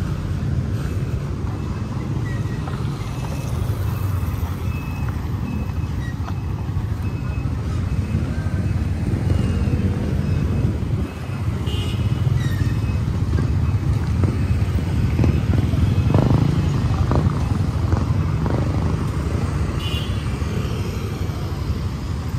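Road traffic at a roundabout: a steady rumble of passing motorcycles and cars, swelling briefly now and then as vehicles go by close.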